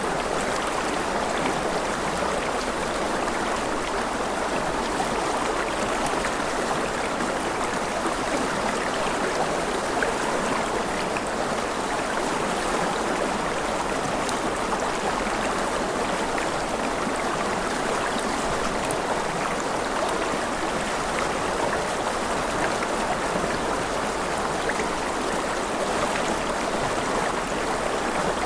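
Running water of a stream, a steady, even rush with no breaks.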